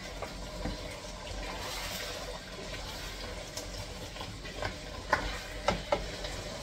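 A metal spoon stirring a pot of soup over a steady hiss, with a few sharp knocks of the spoon against the pot about five seconds in.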